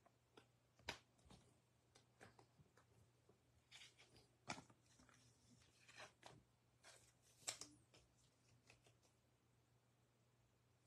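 Faint, scattered clicks and rustles of trading cards being handled and set onto plastic display stands, with quiet gaps between them.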